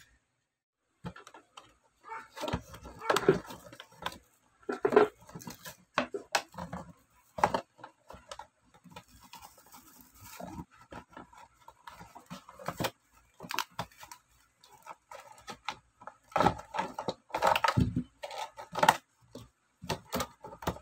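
Clear plastic blister packaging of a toy truck being pried open and pulled off its cardboard backing: irregular crinkling and crackling of stiff plastic, with sharp clicks and taps.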